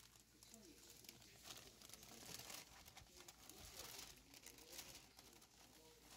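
Faint crinkling and rustling of handled packaging, a run of short, irregular crackles.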